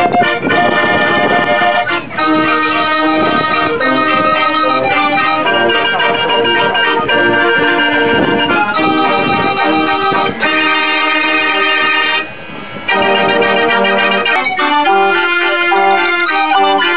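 Verbeeck 72-key concert organ, a bellows-blown pipe organ, playing a lively tune from its punched cardboard book with its pipes and a steady beat of drum strokes. The music dips briefly about twelve seconds in, then carries on.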